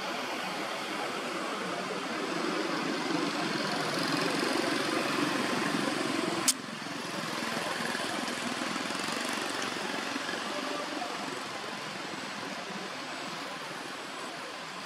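Steady outdoor background noise, a hiss and rumble without any clear tone, swelling a little in the first half. A single sharp click about six and a half seconds in, after which the noise is slightly quieter.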